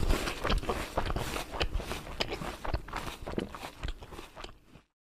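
Teeth and lips clicking and scraping on a hollow plastic toy corn cob in pretend biting: a quick irregular run of small clicks that dies away and cuts off just before the end.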